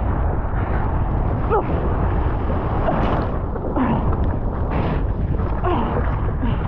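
Strong wind buffeting the camera microphone: a steady, heavy rumble out on the open water.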